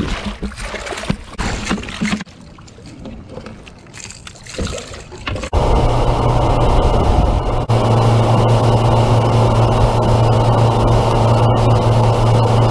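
Irregular rushing noise with scattered knocks, then about five and a half seconds in a sudden switch to the steady, loud drone of a 200-hp outboard motor driving a fishing boat at speed, with water rushing along the hull.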